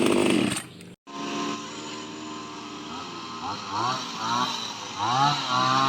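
Kamatsu HT230 two-stroke hedge trimmer engine running, with a brief break about a second in. It then runs steadily at low speed and is blipped several times, its pitch rising and falling with each blip.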